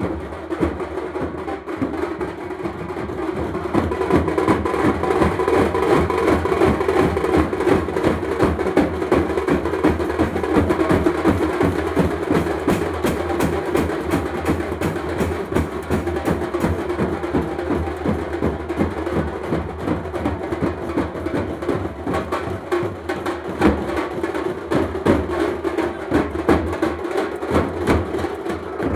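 Teenmaar drum beat: a fast, dense rhythm of sharp drum strikes, growing louder a few seconds in.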